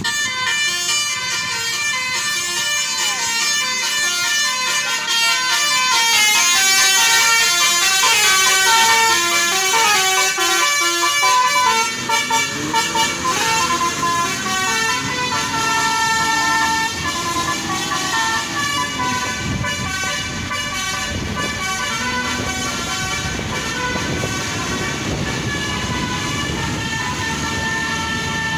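Indonesian tour bus's basuri multi-tone musical horn playing a 'telolet' melody, its notes stepping up and down in pitch. It is loudest about six to twelve seconds in.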